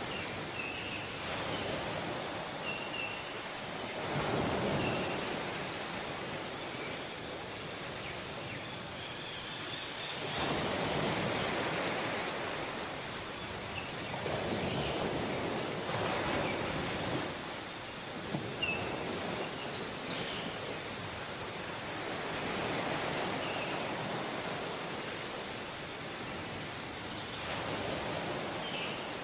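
Sea waves washing onto a beach, the surf swelling and easing every few seconds, with a few short high chirps over it.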